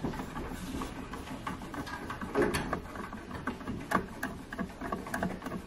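Phillips screwdriver turning out the screw that holds the fan and blending tube on a gas combi boiler: scattered faint clicks and small metal-on-metal scrapes, one a little sharper about four seconds in.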